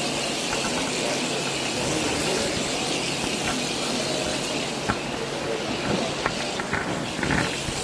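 Steady rushing hiss of water at a bird-washing tub where an oiled brown pelican is being cleaned, with a few sharp knocks and clatters in the last three seconds.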